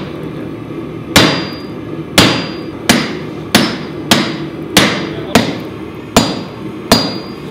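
Blacksmith's hammer striking a red-hot steel knife blank on an anvil, nine blows at a steady pace of about one every two-thirds of a second, each with a short high ring. The round face of the hammer is forging the choil into the blade.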